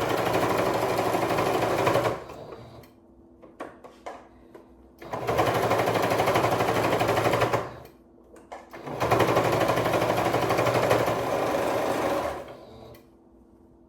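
Electric sewing machine running in three bursts of stitching, each about two to three seconds long, with short pauses between.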